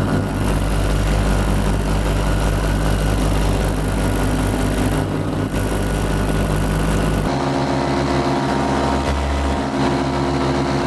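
Paramotor's two-stroke engine, a Vittorazi Atom 80, running steadily in flight, with propeller and wind noise on the microphone. About seven seconds in, the tone of the engine changes abruptly.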